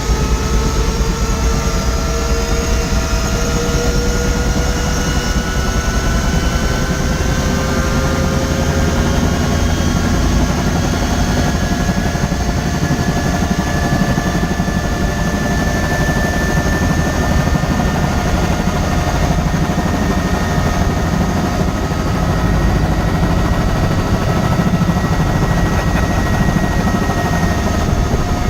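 Helicopter engine and rotor running steadily, with thin whining tones that slowly rise in pitch.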